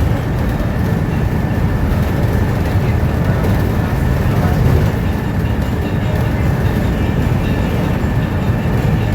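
Steady low rumble of a moving bus, heard from inside: engine and road noise.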